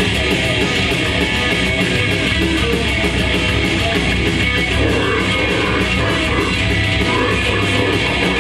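Grindcore band playing live at full volume: distorted electric guitars, bass and drums in a dense wall of sound, with fast, steady cymbal hits.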